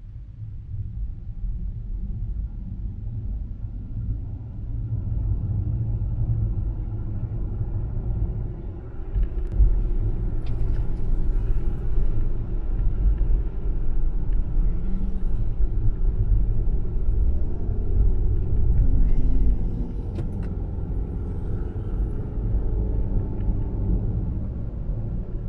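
Low rumble of a car driving along a paved road, tyre and road noise mostly, which grows louder about four seconds in and again near nine seconds as the car gathers speed. A few faint clicks or rattles sit on top of it.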